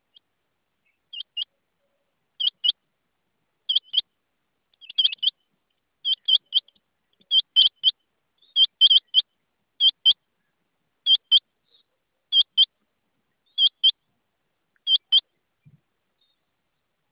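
Rain quail calling: short, high double notes, sometimes three, repeated in a steady series about every second and a quarter.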